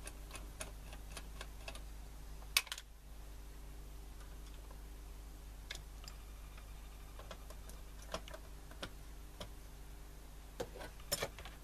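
A clock ticking faintly over a low steady hum, with a few sharp clicks and knocks of small objects being handled on a workbench. The loudest click comes about two and a half seconds in, and there is a short cluster of clicks near the end.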